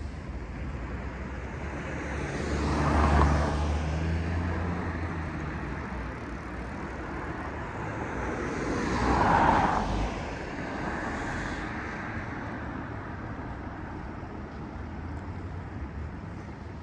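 Two cars passing by one after another on a city street, each swelling up and fading away over a steady traffic hum; the first has more low engine rumble.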